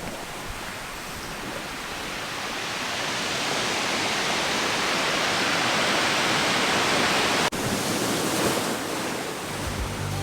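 Sea waves washing in over a rocky shore: a rush of surf that builds for several seconds, breaks off abruptly, then carries on more evenly. Guitar music comes in at the very end.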